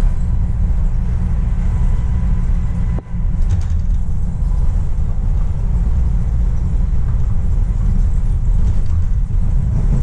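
Subway train running between stations, heard from inside the car: a loud, steady low rumble of wheels on rail, with a momentary drop about three seconds in.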